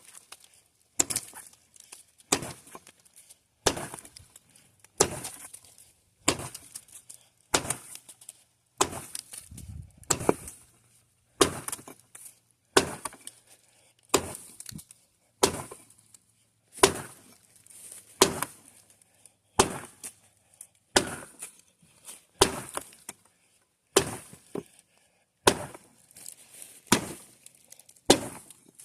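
Axe chopping very dry, tough elm: sharp, regular strikes of the blade into the wood, about one every second and a quarter, each with a short ring.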